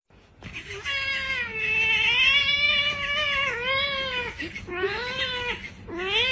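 A cat yowling: one long, wavering call lasting about three seconds, then two shorter meows.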